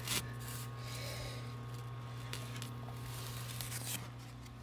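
Eggs and the egg tray being handled: a sharp knock just after the start, then light rustling and rubbing, with a louder rustle near the end, over a steady low hum.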